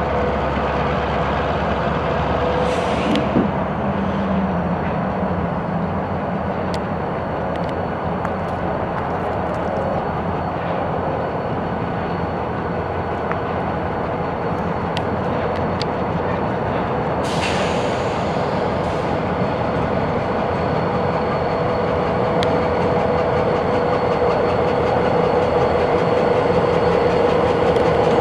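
Union Pacific diesel locomotive running as it rolls slowly closer, its engine drone carrying a steady tone that grows louder near the end. There are two short hisses, about three seconds in and again about seventeen seconds in.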